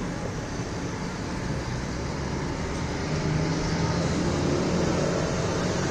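Steady street traffic noise, with a low engine hum that grows louder about three seconds in.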